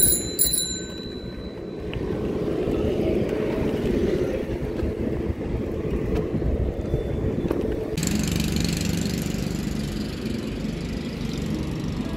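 A bicycle bell rung twice in quick succession, then the steady rumble of wind and road traffic while riding. About two-thirds of the way through, the background changes to a brighter hiss with a low hum.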